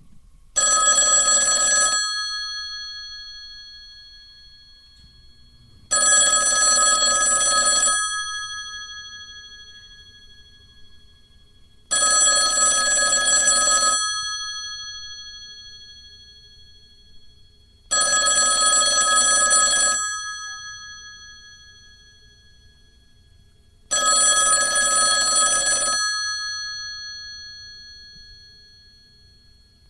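Telephone bell ringing five times, each ring about two seconds long and starting every six seconds, with the bell tones dying away between rings.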